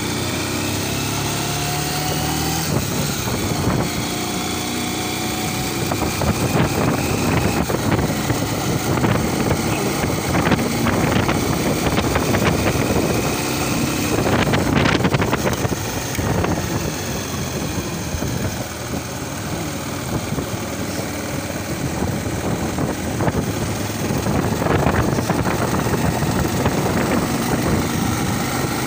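Small motorcycle engine running while riding along a paved road, its pitch rising and falling over the first few seconds, with wind noise rushing over the handlebar-mounted microphone.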